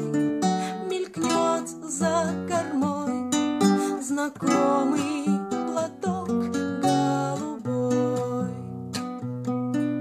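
A woman singing a slow song while accompanying herself on an acoustic guitar, playing chords under the melody.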